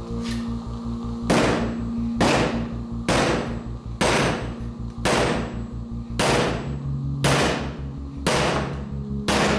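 Hammer blows about once a second, each ringing briefly, as the steel VW VR6 intake valve is forged on the anvil face of a vise. Background music with a steady pulsing beat plays underneath.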